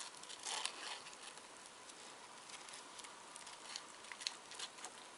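Scissors snipping through thin tissue paper, with the paper rustling: a few faint, scattered cuts, a small cluster about half a second in and more near the end.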